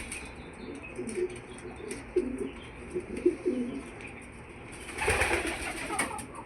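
A hen making a run of short, low, soft clucks, then a brief noisy rustle about five seconds in.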